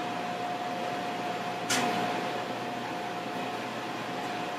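Steady hum of machine-shop ventilation and running equipment, with a constant mid-pitched tone running through it. A single sharp click sounds a little under two seconds in.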